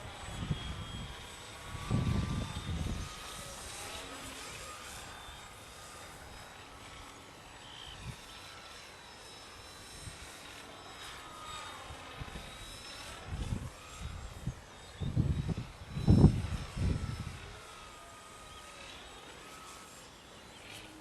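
Radio-controlled Art-Tech Spitfire model plane flying, its electric motor and propeller making a faint whine that glides up and down in pitch as it passes back and forth. Gusts of wind hit the microphone about two seconds in and again several times in the last third, the loudest near the end.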